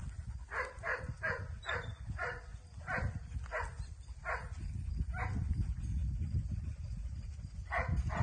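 A dog barking in short, quick barks, about nine in a row, then a pause of a couple of seconds and two more barks near the end.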